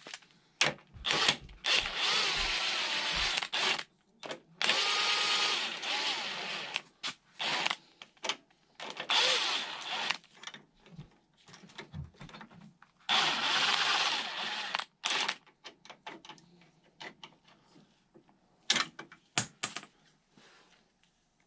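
A power tool running in four bursts of about two seconds each, on fasteners of an ATV's front suspension, with short clicks and knocks of tools and parts between the runs.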